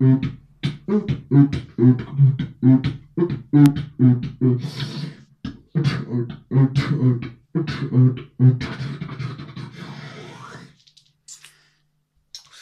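Electro-style beatboxing into a handheld microphone: a fast, even rhythm of deep bass kicks under sharp, hi-hat-like clicks and hisses, which stops about eleven seconds in.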